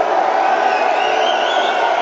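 Concert crowd cheering loudly and steadily, with high wavering shrieks rising above it about a second in.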